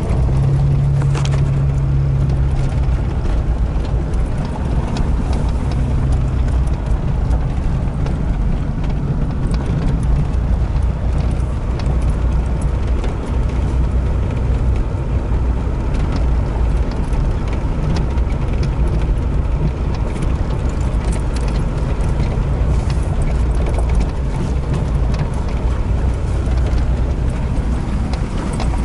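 Truck driving over a snowy, rutted dirt road, heard from inside the cab: a steady low rumble of engine and tyres, with scattered knocks and rattles. The engine's hum is strongest for the first few seconds, then sinks into the road noise.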